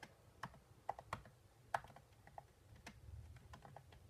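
Faint, irregular keystrokes on a computer keyboard: a dozen or so separate taps, like typing a search.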